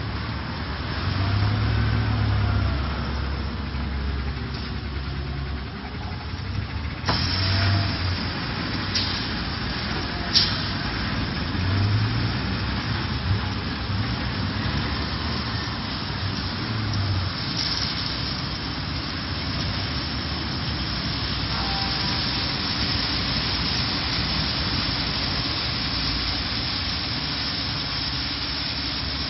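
Risense CB 750 automatic bus wash running with a city bus inside: the bus engine rumbles low while a steady hiss of water spray sets in suddenly about seven seconds in, with a couple of sharp clicks soon after.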